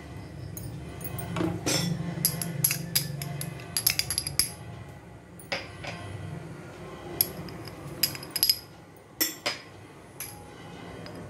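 Sharp clinks and taps of spoons and spice containers against a kadhai as powdered spices are added to oil, scattered irregularly through, over a steady low hum that fades about halfway.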